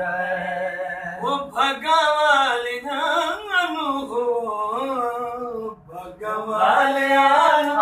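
A man singing a devotional qasida in praise of Mola Ali, unaccompanied, in long held lines that glide and bend in pitch, with a short break for breath about six seconds in.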